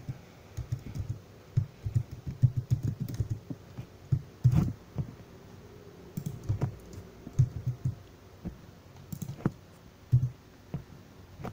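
Typing on a computer keyboard: irregular key clicks, with a few louder keystrokes spread through.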